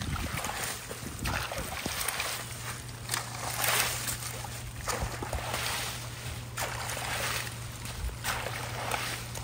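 A long-handled rake dragged through wet leaves and shallow running runoff water, splashing and scraping in repeated strokes about once a second over the steady trickle of the flow.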